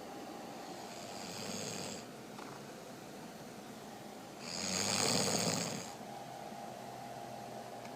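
A sleeping person snoring: a softer hissing breath about a second in, then one loud rattling snore near the middle lasting about a second and a half.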